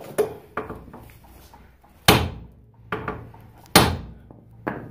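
Hammer blows on a Nissan Sentra's steering knuckle, struck against a second hammer, to shock the ball joint loose from the knuckle. Six uneven metal-on-metal strikes; the two hardest, near the middle, ring on briefly.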